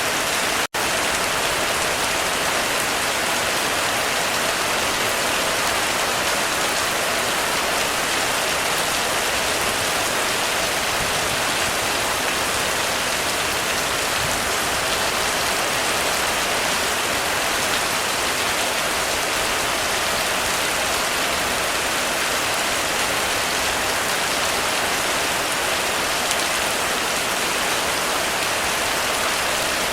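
Heavy rain pouring steadily on a roof, an even dense hiss of drops. It cuts out for an instant less than a second in.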